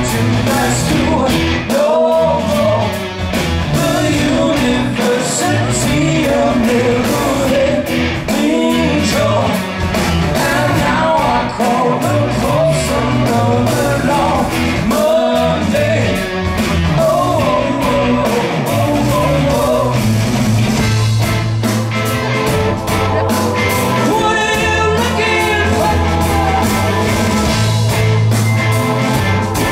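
Live rock band: a male singer over electric guitar, with bass and drums. About twenty seconds in the singing gives way to a heavy, repeating guitar riff over sustained low notes.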